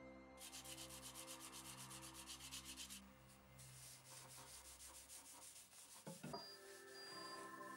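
Quick, rhythmic back-and-forth rubbing strokes on the axe, stopping about three seconds in, over faint background music. A soft knock comes a little after six seconds.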